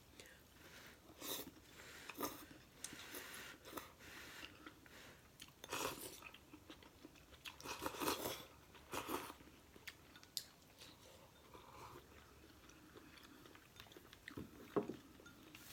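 Close-miked eating of instant noodles: chewing with crunchy bites and slurps, in separate bursts every second or two.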